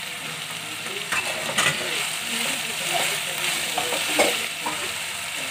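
Sliced onions, ginger and garlic sizzling steadily in hot oil in a nonstick kadhai, stirred with a wooden spatula that knocks and scrapes against the pan a few times.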